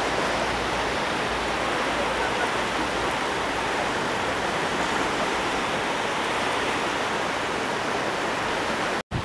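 Sea surf on a beach, a steady even rushing roar with no single wave standing out. It cuts out for a split second near the end.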